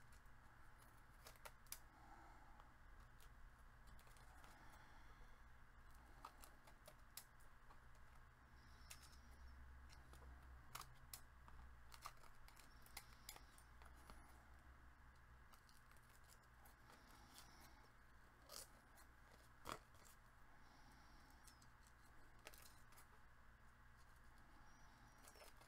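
Scissors snipping through cardstock, faint and intermittent, with scattered small snips and a couple of sharper ones about two-thirds of the way through.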